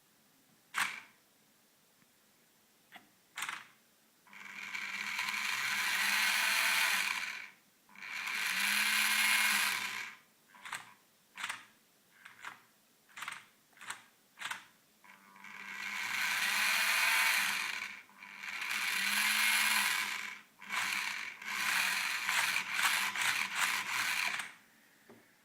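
Toy RC car's small electric drive motor and plastic gearbox whirring in spurts: several runs of two to three seconds between many quick blips, as the car is switched on and off by remote.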